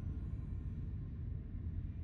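A steady low rumble with no distinct events in it.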